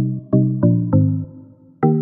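Background music: a synthesizer melody of short, plucked-sounding notes, a quick run of notes, a pause, then another note near the end.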